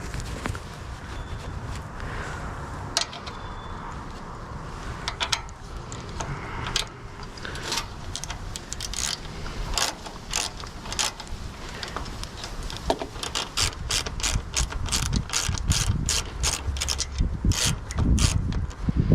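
Hand ratchet wrench clicking in runs as it backs off the carburetor mounting bolts. The clicks come faster and closer together in the second half, with some low knocks near the end.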